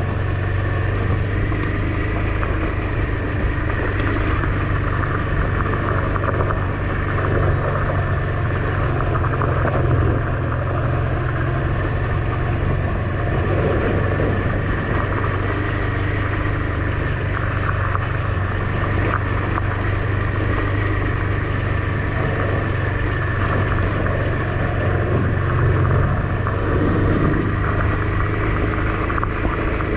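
Honda XL650V Transalp's 650 cc V-twin engine running steadily while riding, with a steady rush of noise over it.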